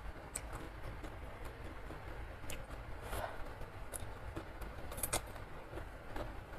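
Eating sounds from a bowl of instant noodle soup: scattered short chewing and slurping clicks, and light clinks of a metal spoon and fork against the bowl, roughly once a second over a steady low background rumble.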